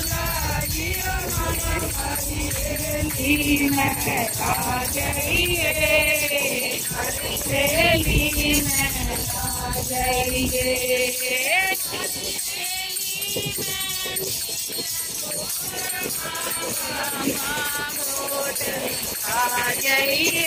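A group of women singing a song together, with a percussive beat keeping time. A low rumble runs under the first half and fades out about halfway through.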